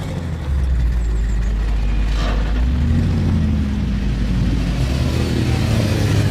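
Audi RS6 Avant's twin-turbo V8 exhaust, the car standing still while the engine is revved. It gets louder about half a second in, and the revs climb through the second half.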